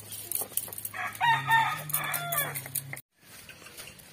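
A rooster crows once, about a second in, a call of about a second and a half that falls in pitch at its end. Before it, light knocks of a stone muller crushing garlic and ginger on a grinding stone; the sound cuts off suddenly near three seconds.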